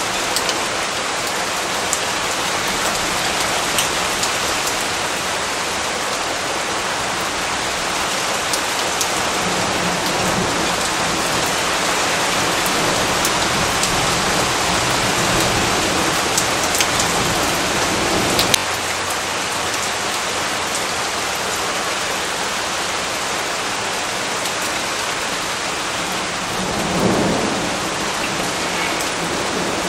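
Steady rain with scattered sharp drop hits, and a low roll of thunder that builds through the middle and stops abruptly about two-thirds of the way through; a shorter rumble of thunder swells and fades near the end.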